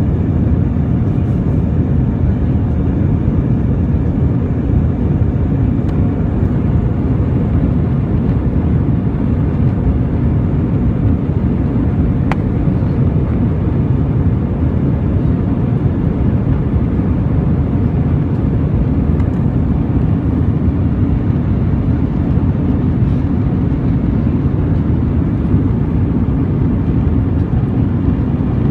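Steady cabin noise of an Airbus A320 in the climb, heard inside the cabin from a window seat over the wing: the even low rumble of its two IAE V2500 turbofan engines mixed with the rush of air past the fuselage.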